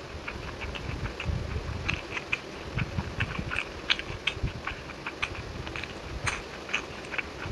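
A person chewing a mouthful of chicken biryani close to the microphone: wet mouth clicks and squelches, several a second at an irregular pace, over soft low thuds of chewing.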